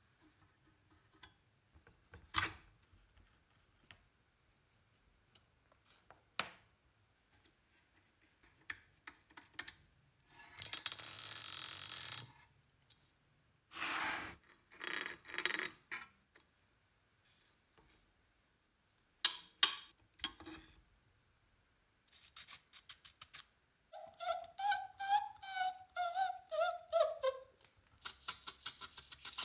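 Workshop handling sounds: scattered clicks and knocks, two longer scraping or rubbing noises, and near the end a rapid squeaking creak that slides down in pitch, followed by a quick run of clicks.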